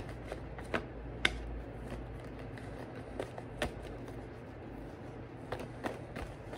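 Tarot cards being shuffled and handled, giving scattered light snaps and taps at irregular intervals, the sharpest about a second in and again a little past three seconds.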